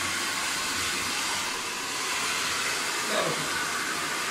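Handheld hair dryer running steadily and blowing onto a chow chow's thick coat: an even, continuous rushing noise.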